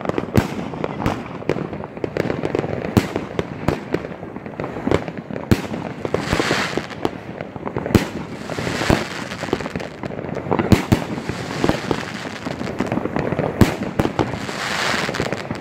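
Several consumer battery fireworks (cakes) firing together: a rapid, irregular barrage of launch thumps and aerial bangs, several a second, with swells of denser noise about six and nine seconds in and again near the end.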